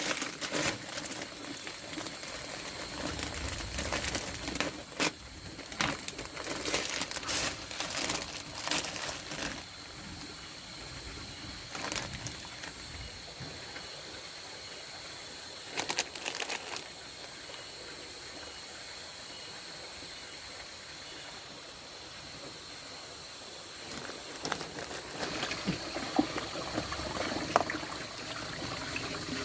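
Intermittent rustling, crinkling and sharp clicks of things being handled, busiest in the first ten seconds and again near the end, over a steady high-pitched drone of rice-field insects.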